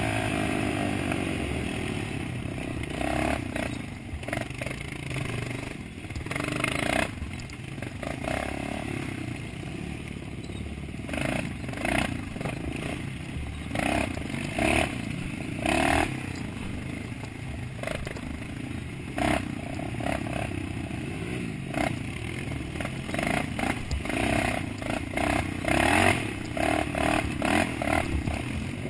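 Dirt bike engine running and revving on a rough, muddy trail. The revs drop near the start, and after that frequent clatter and knocks come from the bike jolting over bumps.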